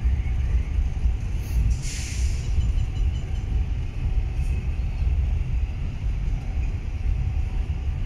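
Double-stack intermodal container train rolling past at close range, a steady low rumble of well cars on the rails, with a short hiss about two seconds in.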